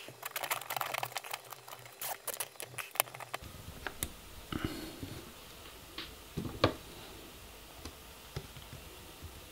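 Small clicks and rustles of hands handling a small quadcopter and its zip ties and cables on a workbench. The sounds are dense for the first few seconds, then thin to a few scattered sharp clicks.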